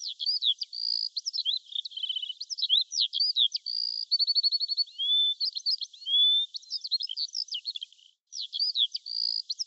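Songbird singing a fast, varied song of quick chirps, rapid trills and short whistled notes, thin and high-pitched, with a brief break near the end.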